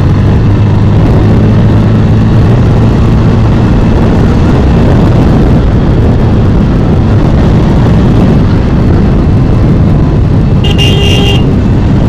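Bajaj Pulsar N160's single-cylinder engine running steadily at a cruising speed of about 80–90 km/h, under steady wind and road noise. A brief high-pitched beep sounds about eleven seconds in.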